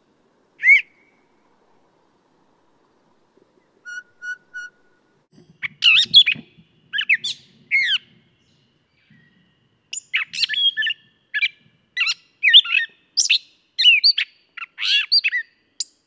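Gray catbird singing: a long run of many short, quickly changing jumbled notes with brief pauses, from about five or six seconds in. Before it come a single short bird call about a second in and three short even notes around four seconds in.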